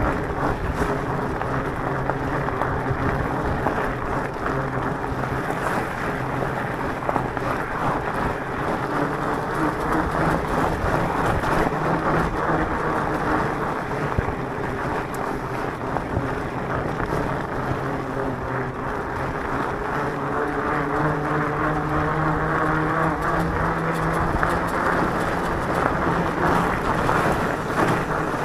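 Electric mountain bike riding on a gravel road: the motor hums with several steady tones that drift slowly in pitch, over the constant crunch and rattle of the tyres on gravel.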